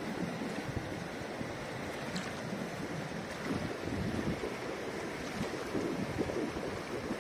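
Fast, shallow mountain river rushing over stones, a steady noise of running water, with wind buffeting the microphone.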